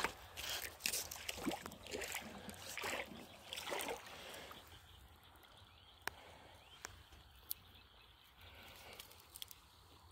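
Shallow river water sloshing and splashing as it is stirred, irregular and loudest over the first four seconds. After that it settles to a quiet trickle with a few sharp clicks.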